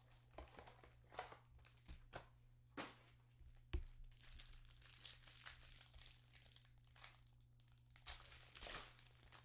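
Faint handling of a trading-card hanger box: short crackles and rustles as the box is opened and the plastic wrapper around the card stack is torn and crinkled, with one soft thump about four seconds in.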